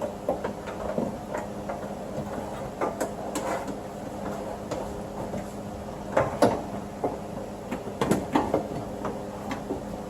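Irregular clicks, knocks and clunks of metal parts being handled and fitted inside a car door as a new window regulator is attached and screwed in, over a steady low hum.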